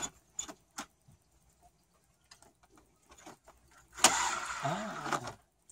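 Retractable load-space cover of a Mercedes E-Class estate being unhooked and rolling back into its cassette: a few sharp clicks at the start, then about four seconds in a loud whirring rush lasting just over a second as the cover retracts.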